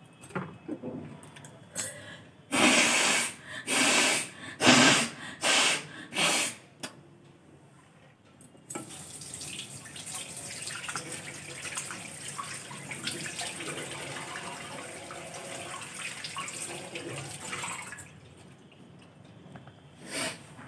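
Forceful nose blowing over a wash basin, about five hard blasts in quick succession. A few seconds later a tap runs into the basin for about nine seconds, then stops.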